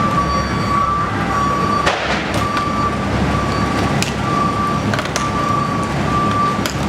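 A high, steady electronic tone sounding in long stretches with short breaks, over a steady low rumble, with a few sharp clicks.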